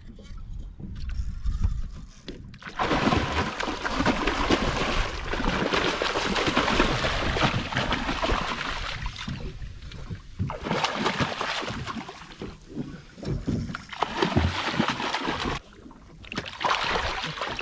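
Water rushing and splashing around a small fishing boat, in uneven surges with short lulls about two, ten and fifteen seconds in.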